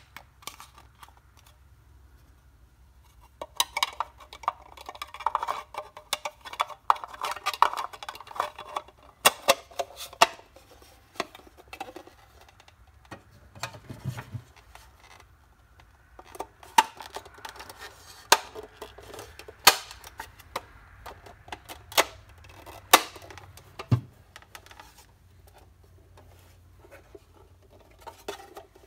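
Clear plastic window insert and metal interior piece being worked into the pressed-steel cab of a Mighty Tonka dump truck: scraping and rubbing of plastic against painted steel for several seconds, then scattered sharp clicks and taps as the parts seat.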